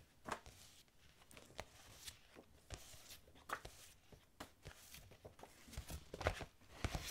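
Faint rustling and light taps of paper sticker sheets being shuffled and flipped by hand.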